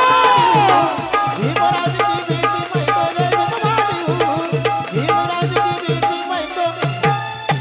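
Live band music: a woman's sung note bends and fades about a second in, then dholak hand drum keeps a quick steady beat under repeating keyboard phrases.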